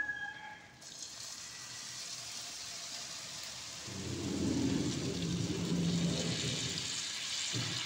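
Jaggery syrup hitting hot ghee-roasted semolina in a pan, sizzling with a steady hiss. About four seconds in a deeper churning, bubbling sound joins as the syrup boils up in the pan.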